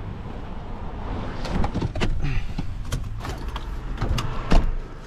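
Car with a steady low rumble, then a run of knocks and clicks from about a second and a half in, the loudest a single thump near the end.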